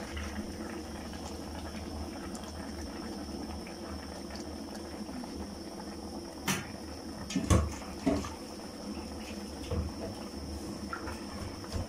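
Aluminium pot of mudfish stew at a steady boil, bubbling. A few sharp clicks and knocks come about halfway through.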